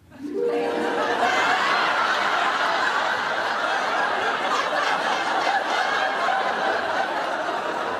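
Studio audience laughing, swelling up about half a second in and carrying on steadily.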